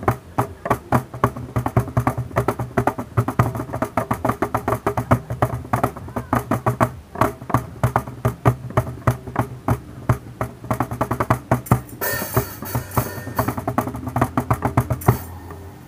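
Live acoustic music: a hand drum played in a fast, driving rhythm over strummed acoustic guitar. About twelve seconds in a high hiss joins, and the playing thins out near the end.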